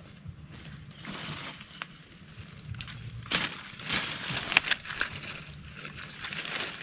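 Leaves and undergrowth rustling and crunching as someone moves through and handles forest-floor plants, with a few sharp snaps; the loudest snap comes about four and a half seconds in.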